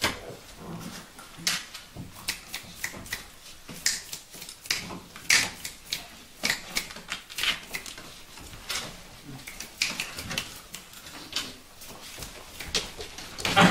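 A litter of Vizsla puppies scrambling in a wooden whelping box: irregular clicks and scratches of small claws on the wooden boards and blankets, several a second, with no steady rhythm.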